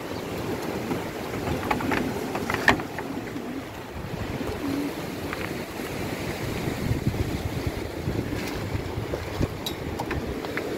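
Strong sandstorm wind buffeting the microphone and rushing past the wooden loft, a steady low rush, with a few short clicks about two seconds in and again near the end.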